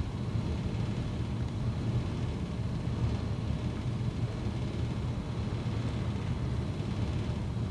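Steady background room noise: a constant low hum with a faint hiss underneath.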